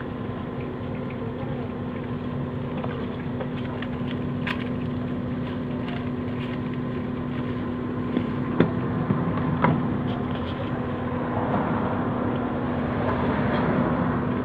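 A steady motor hum with a constant low tone runs throughout. A few sharp knocks and wet scraping come from fish pieces being turned in marinade on a steel tray, busier near the end.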